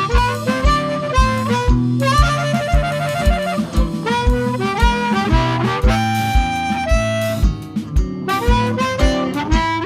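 Live blues band playing an instrumental passage: harmonica carrying the melody over bass and a steady beat of about two a second.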